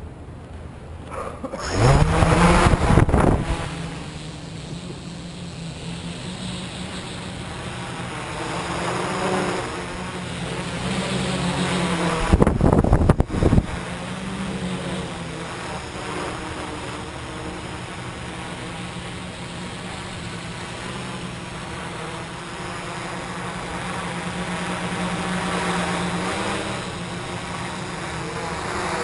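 Quadcopter's four electric motors and propellers spinning up about two seconds in, then buzzing steadily as it hovers and flies, the pitch rising and falling with the throttle. Twice the propeller downwash hits the microphone as a loud rush of air: once right at lift-off and once about halfway through.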